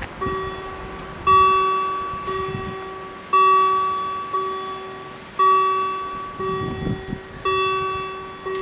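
Level-crossing warning bells ringing as the crossing switches on for an approaching train: a struck bell tone about once a second, louder and softer strokes alternating, each ringing out and fading.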